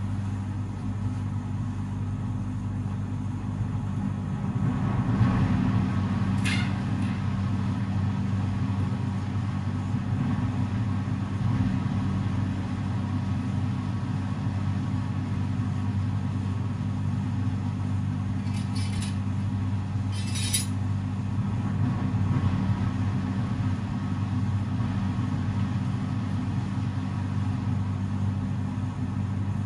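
Steady low machine hum with a constant pitch. A few brief rustling scuffs come from the fabric cover being pulled over the foam.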